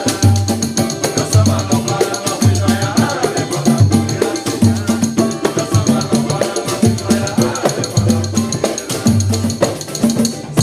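Samba band playing, with percussion led by a steady low drum beat about once a second and quick, sharp hand-percussion strokes over it.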